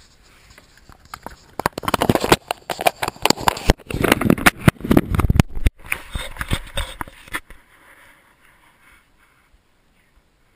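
A GoPro camera in its case on a dog's collar knocking and rubbing as the dog moves, a dense run of loud clicks and scuffs lasting about six seconds before it settles to quiet.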